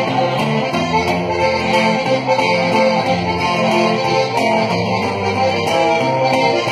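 Live norteño conjunto music playing a redova dance tune: a bajo sexto strummed in a steady, even rhythm together with a button accordion.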